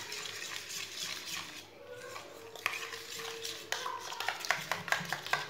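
A metal spoon beating raw eggs with ground spices in a stainless steel bowl: wet stirring, then quick rapid clinks of the spoon against the bowl's side that come thicker in the second half.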